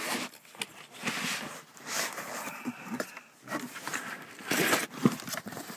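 Handling noise from the car seat base's LATCH strap and hook: irregular rustling with several light clicks and knocks as the strap is moved over to the other side.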